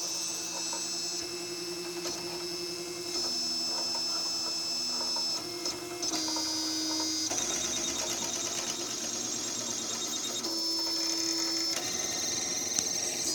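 3D printer at work, its stepper motors whining in steady tones that jump to a new pitch every second or two as the print head changes moves.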